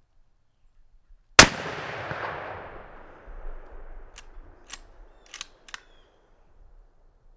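A single hunting-rifle shot at a deer, loud and sudden, with a long echo rolling away for about two seconds. Four short sharp clicks follow a few seconds later.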